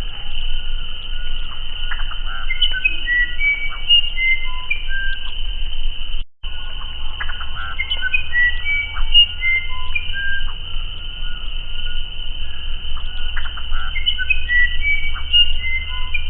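Musician wren (uirapuru) singing: three phrases of clear, flute-like whistled notes that jump between pitches, mixed with short clicking, gurgling notes. The sound cuts out briefly about six seconds in.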